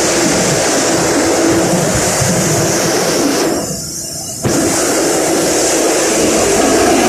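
Flour mill machinery running at full tilt, a loud, steady mechanical din. It goes muffled for about a second near the middle, then comes back suddenly.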